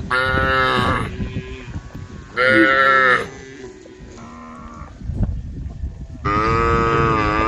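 Cows mooing to one another in a herd, about four separate calls, the last a long one near the end.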